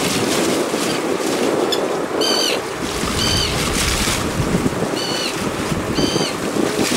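Wind buffeting the microphone over the wash of the sea along a small fishing boat's hull, a steady rushing noise. A short, high chirp sounds four times, in two pairs about a second apart.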